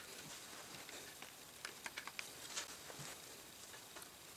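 Faint scattered clicks and small scrapes of a screwdriver driving the side screws that mount a multi-card reader in a PC case's drive bay, with a quick run of ticks a little before the middle.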